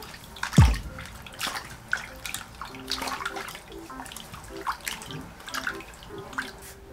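Hands washing plush dog toys in a basin of water: splashing and squishing as the soaked toys are squeezed and rubbed. A loud low thump comes about half a second in.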